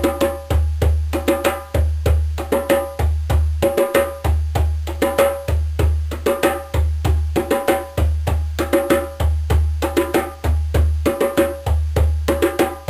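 Djembe played with bare hands in a steady repeating rhythm: deep bass tones keeping a heartbeat pattern, with higher open tones struck between them.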